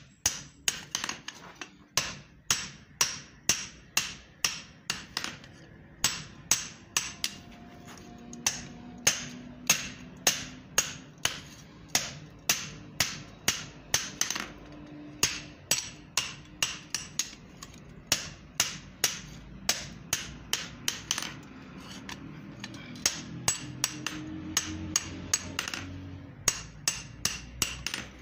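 Blacksmith's hand hammer striking a red-hot steel axe head on an anvil, forging the blade: quick, even blows at about three a second, broken by brief pauses.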